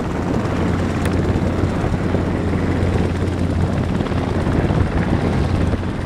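Engine and propeller of a small motorglider running at takeoff power, a steady drone over a rough rumble as it climbs away after liftoff.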